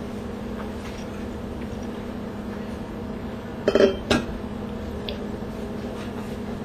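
A quick cluster of clinks and knocks of hard objects on a tabletop, about four seconds in, over a steady low hum.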